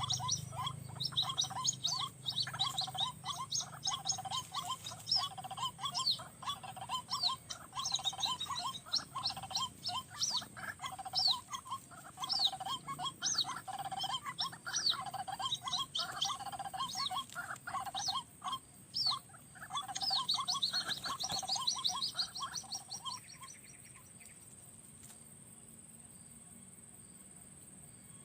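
White-breasted waterhen calling: a long run of fast, repeated loud notes that stops abruptly about 23 seconds in. A faint steady high-pitched whine continues under it and after it.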